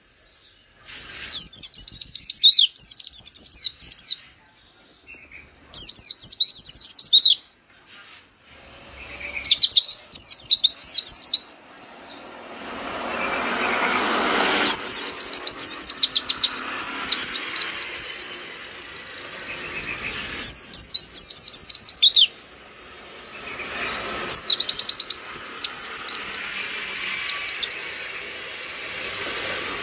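Caged white-eye (pleci) singing in rapid-fire bursts of fast, high-pitched twittering, each burst a second or two long and repeated every few seconds. A rushing background noise swells in the middle and holds through the second half.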